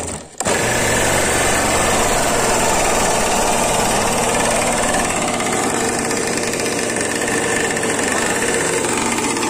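An RC boat's small Zenoah two-stroke petrol engine catches about half a second in, then runs steadily at idle.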